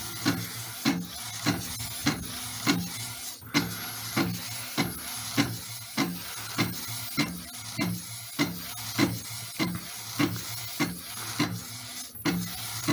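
Print head carriage of an Epson 1500W inkjet converted to a direct-to-garment printer, sweeping back and forth while printing onto a t-shirt. A steady mechanical whir with a short clack repeating about twice a second.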